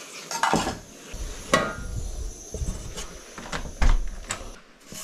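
Camp cookware being handled: a series of separate knocks and clinks of metal pots and utensils set down and moved, some ringing briefly, the loudest a little before the end.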